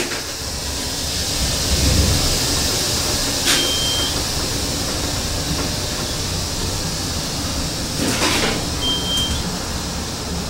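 Montgomery Kone traction elevator cab in motion, a steady low hum with a rush of air noise. Two short high beeps sound, about three and a half seconds in and again near the end.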